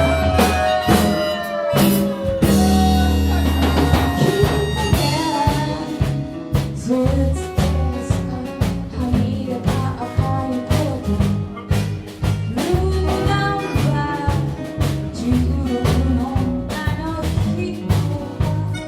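Jazzy blues-style band music: a drum kit and a steady, regularly pulsing bass line under a lead melody with bending notes.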